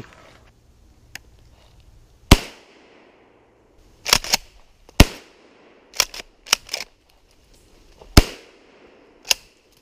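Three shots from a 20-gauge shotgun, about three seconds apart, each a sharp crack with a short echo trailing off, with quieter clacks between them.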